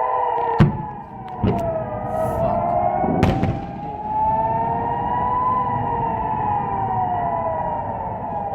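Several civil-defense air-raid sirens wailing together, warning of incoming rocket fire, their pitches slowly rising and falling out of step with each other. Three sharp bangs cut through in the first few seconds, the loudest about half a second in.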